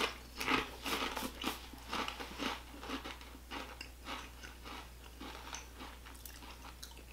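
Crisp potato chips being bitten and chewed with the mouth close to the microphone: a run of sharp crunches, loudest in the first few seconds, fading to quiet chewing near the end.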